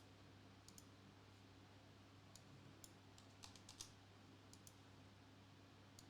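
Near silence with faint computer keyboard and mouse clicks, scattered singly with a short quick run of them about halfway through, over a faint steady low hum.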